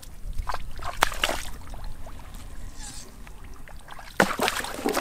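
Splashing and sloshing in shallow muddy water as feet and hands work through the mud after fish, with scattered small splashes and a louder splash just after four seconds.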